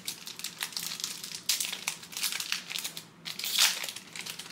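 Foil trading card pack wrapper crinkling and being torn open, in irregular rustles, loudest about three and a half seconds in.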